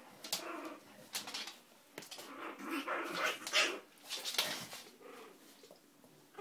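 Dog sounds in short, irregular bursts, loudest a little past halfway.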